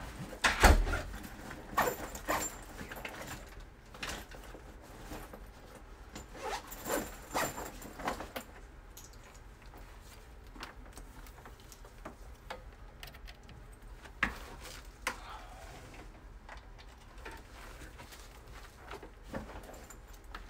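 Scattered knocks, clicks and rustles of objects being handled, with a heavier thump about a second in and a busier patch of knocks around the middle.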